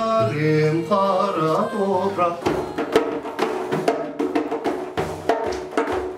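A voice singing a line of a folk song, then, about two and a half seconds in, a large hand-played frame drum takes over with a run of quick strokes.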